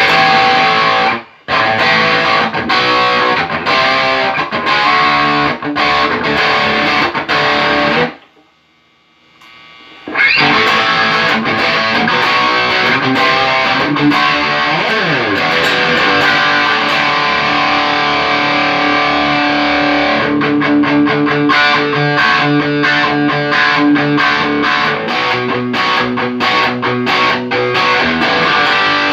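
Electric guitar played with distortion through a Tech21 SansAmp GT2 amp-simulator pedal, which is being tested after a repair. The playing stops briefly twice, for about two seconds around the middle of the first third, then runs on with a downward pitch slide a few seconds later.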